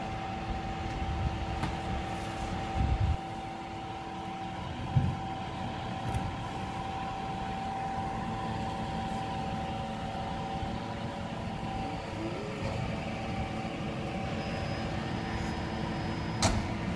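Garbage truck idling at the kerb with a steady hum, with a few dull thumps and a sharp click near the end.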